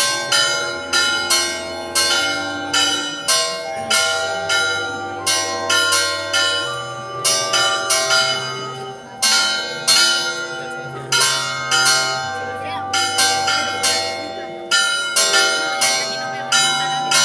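Church bells pealing: several bells struck in quick, irregular succession, roughly two strokes a second, each stroke ringing on under the next.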